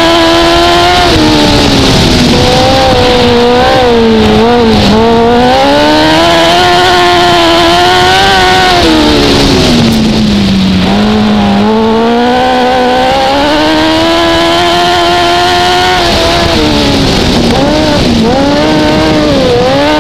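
Onboard sound of a Pro Dwarf race car's motorcycle engine running hard around a dirt oval. Its pitch climbs on the straights and drops off into each turn, three dips in all, the deepest about halfway through.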